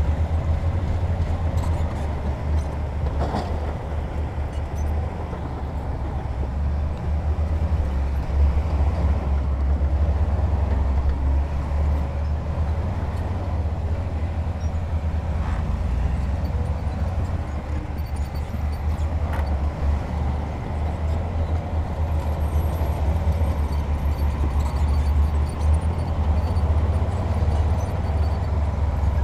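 Heavy diesel earthmoving machinery running with a deep, steady rumble, with a few faint knocks.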